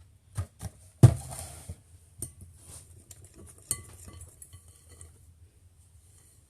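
Kitchen clatter of a pan and utensils: a string of knocks and clinks on the counter, the loudest knock about a second in followed by a brief rustle, and a ringing metallic clink near the four-second mark.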